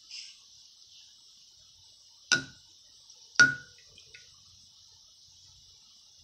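A safety razor scrapes in a short stroke over a lathered scalp, then is knocked twice against the rim of a rinse mug, about a second apart with the second knock louder, each with a brief ring. A steady high hiss runs underneath.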